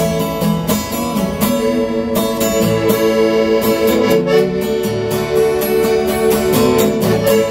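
Piano accordion holding sustained chords over steadily strummed acoustic guitar: an instrumental passage between sung lines.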